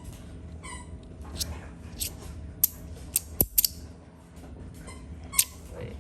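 Magnetic fidget slider plates clacking against each other as they are slid and snapped together: several sharp clicks, with a quick cluster of three or four around the middle and another near the end.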